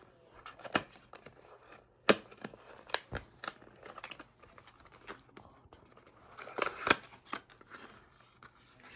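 Packaging being opened by hand: rustling and tearing of box and wrapping, with several sharp clicks and snaps.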